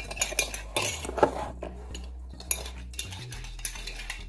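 Metal teaspoon stirring coffee and sugar in a ceramic mug, clinking against its sides: quick clinks in the first second and a half, then a few scattered ones.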